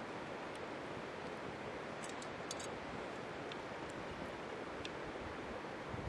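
Steady rushing of a clear stream's flowing water, with a few faint crackles around the middle.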